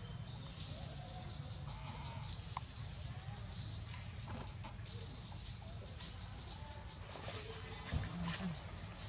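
Forest insects trilling high in fast, even pulses, with a few faint short bird calls underneath.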